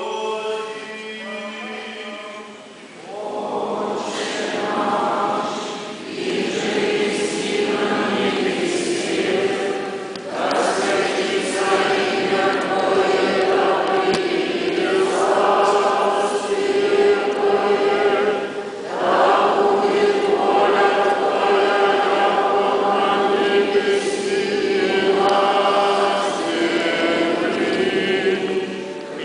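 Church choir singing Orthodox liturgical chant, unaccompanied, in long held phrases with brief pauses. It is quieter for the first few seconds and swells fuller about three seconds in.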